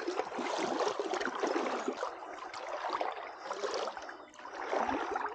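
Legs in waders pushing through shallow lagoon water, the water sloshing and splashing in surges with each stride.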